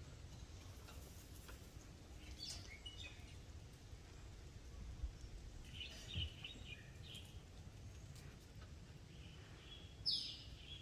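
Short, high-pitched chirps in three brief bursts, about two and a half, six and ten seconds in, the last the loudest, over a faint low background rumble.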